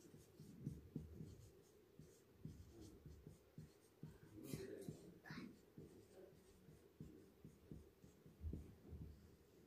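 Marker pen writing on a board: faint, irregular short strokes, with two sharper strokes about halfway through.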